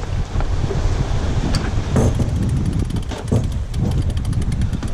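Wind buffeting a camera microphone aboard a sailing yacht under way, over the rush of water along the hull, with a few knocks and clicks about one and a half, two and three seconds in.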